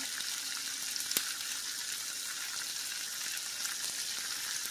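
Diced potatoes sizzling steadily in olive oil and butter in a skillet, with one small click a little over a second in.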